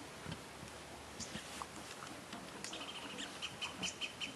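A bird chirping rapidly from about three seconds in, a run of short high notes at roughly seven a second, over faint scattered taps and scrapes.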